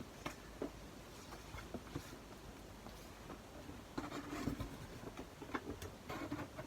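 Packaging being handled and unwrapped: light taps and rubbing, sparse at first and busier for the last few seconds.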